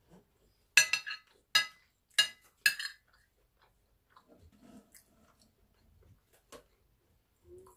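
Metal spoon clinking against a plate four times in quick succession as rice is scooped up, each clink ringing briefly. Then soft, faint chewing of a mouthful of rice and chicken stew.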